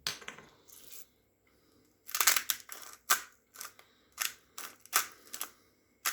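Salt grinder being twisted: a crunching burst about two seconds in, then a string of sharp crackling clicks roughly every half second.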